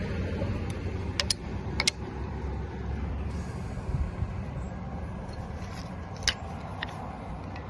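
Small metal pieces clicking and clinking against a fishing magnet, in quick pairs about a second in, again a little later and twice near the end, over a steady low rumble.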